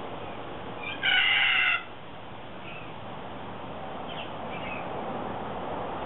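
A bird gives one loud call lasting under a second, about a second in, then a few faint short chirps.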